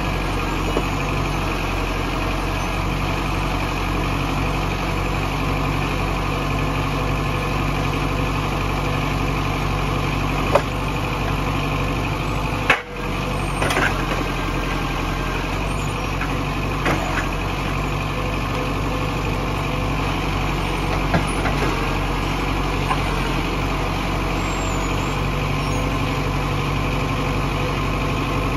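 Zetor Forterra 140 HSX tractor's four-cylinder diesel engine running steadily while it powers a forestry trailer's hydraulic crane. A few short knocks come as the grapple takes logs and sets them on the load.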